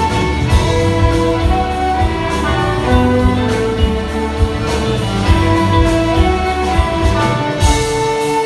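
A large live band plays an instrumental passage, with a bowed violin among the electric guitars, bass and a steady drum beat. A cymbal crashes near the end.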